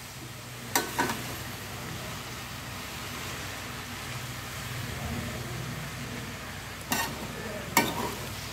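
Slotted steel spatula stirring and tossing rice in a metal kadai, over a steady frying sizzle. Sharp clinks of the spatula against the pan come about a second in and again several times near the end.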